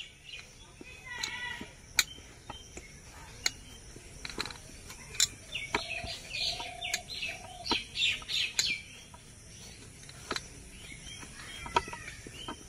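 Birds chirping in short repeated calls, busiest in the middle, with a few sharp clicks or taps scattered through.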